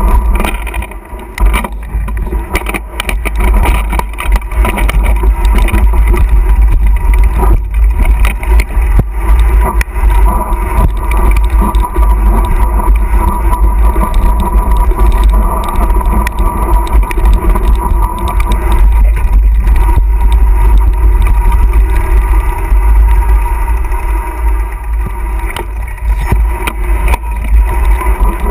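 Wind buffeting a mountain bike's action-camera microphone as the bike descends a dirt singletrack, a heavy constant rumble with the bike's rattles and knocks over the rough trail scattered all through.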